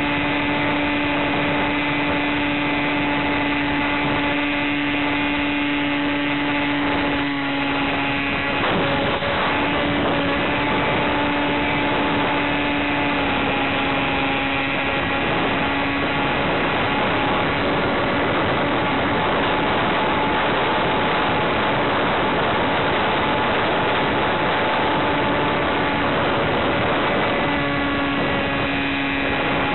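Electric motor and propeller of an Easy Star RC plane running under power in flight: a steady hum over a rushing noise, its pitch shifting slightly a few times.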